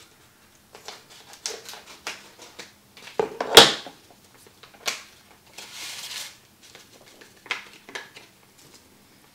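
A paper seasoning packet being snipped open with kitchen scissors and handled, with scattered crinkles, rustles and small clicks. A single sharp knock comes a little over three and a half seconds in.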